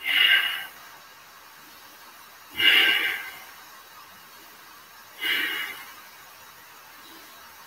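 A man breathing hard and audibly in a yoga stretch, three breaths about two and a half seconds apart.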